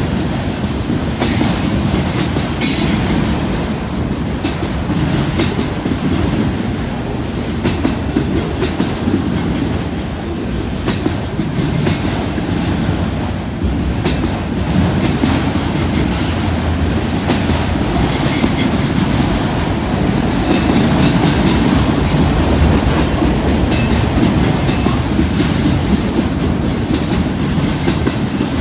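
Autorack freight cars rolling slowly past close by: a steady heavy rumble of steel wheels on rail, with frequent clicks and clanks as the wheels cross rail joints. A brief high wheel squeal comes about three seconds in, and again around two-thirds of the way through.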